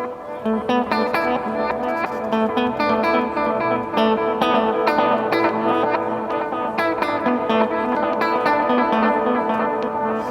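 Electric guitar, a Framus Idol Maker, played through the Earthquaker Devices Avalanche Run, a combined delay and reverb pedal: a steady stream of picked single notes, each ringing into the next.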